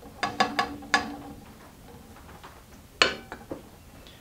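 Light knocks and clicks of a wooden stick against a tin can and an enamel plate while wax-dipped paper is handled. There are four quick clicks in the first second, one leaving a brief ringing tone, then a single sharper knock about three seconds in.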